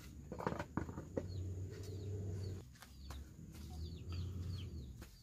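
Young poultry chicks peeping: many short, high peeps that slide downward, scattered throughout, over a steady low rumble, with a few clicks and knocks in the first second or so.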